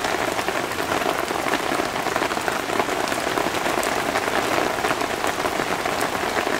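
Campfire burning in the rain: a dense, steady pattering and crackling that never lets up.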